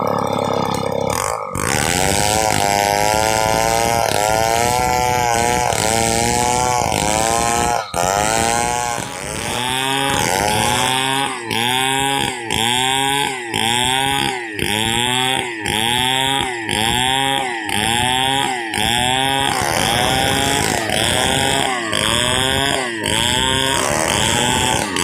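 Stihl 070 two-stroke chainsaw running at high revs while ripping a log lengthwise into boards. The engine pitch sags and recovers over and over, about once a second in the second half, as the bar is worked through the cut under load.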